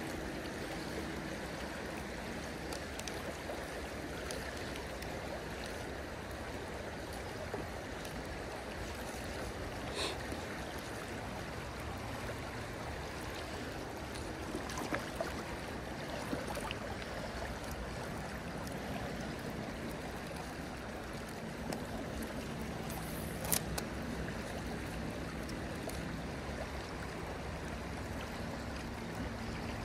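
Steady rushing of a river's current flowing past, with a few short sharp clicks, the loudest about three quarters of the way through.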